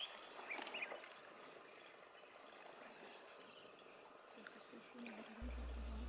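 Steady high-pitched insect chorus, with a couple of short chirps in the first second and a low steady hum coming in near the end.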